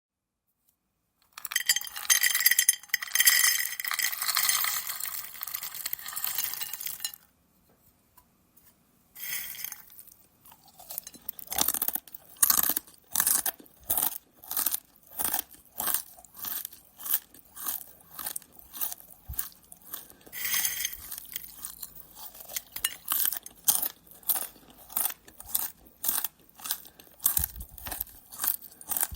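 Hard corn nuts rattling and clinking for about six seconds, then a pause. After that someone bites and chews corn nuts with loud, regular crunches, about two a second.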